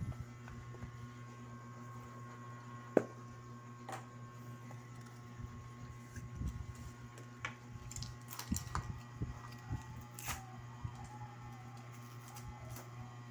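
Scattered small clicks and knocks, with one sharp click about three seconds in and a busier run of them later, over a steady low electrical hum.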